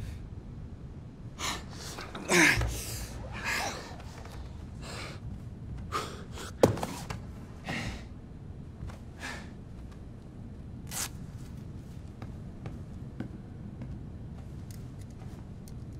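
Men breathing hard and gasping for breath, worn out from sparring, with scattered short breaths and a couple of brief grunts in a reverberant gym.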